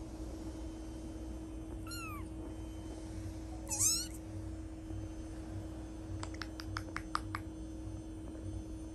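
Three-week-old British Shorthair kitten mewing: a thin, high mew about two seconds in and a louder one near four seconds, each falling in pitch. A quick run of faint clicks follows a couple of seconds later.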